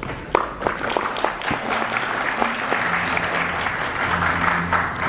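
Audience applauding: a few separate claps at first, quickly filling in to steady applause.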